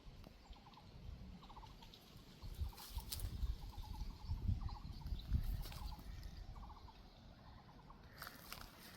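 Faint animal calls: short, rapid chattering trills repeated about once a second, over a low rumble.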